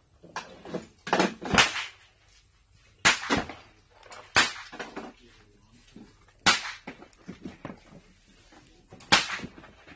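Gunshots from a .22 rimfire rifle: about five single sharp cracks, one to three seconds apart.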